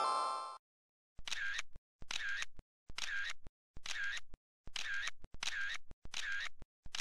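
The same short sound effect repeated at an even pace, about once every 0.9 seconds, roughly seven times in a row, after the tail of a rising glide effect fades out at the start.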